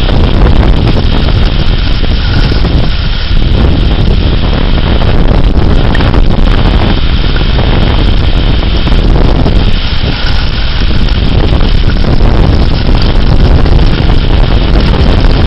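Severe thunderstorm winds of damaging strength blasting the microphone: a loud, continuous rushing roar that surges in gusts.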